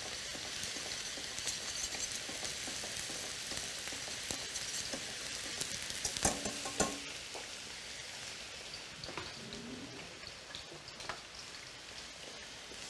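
Oil sizzling steadily in frying pans of zucchini slices and of mushrooms with peppers, with a few light clicks of a wire whisk against a steel saucepan as flour is stirred into melted vegetable ghee for a béchamel roux.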